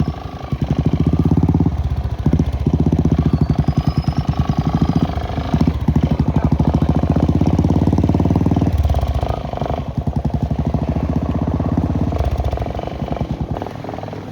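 Motorcycle engine running, with a rapid, even exhaust beat. The note changes about nine seconds in, and the sound eases off near the end.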